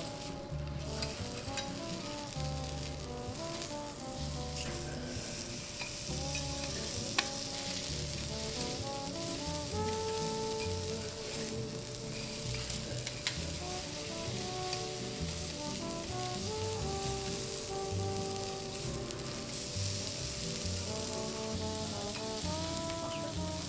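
Kobe beef steak sizzling steadily on a steel teppanyaki hotplate, with a few sharp clicks. Background music with a repeating bass line and melody plays over it.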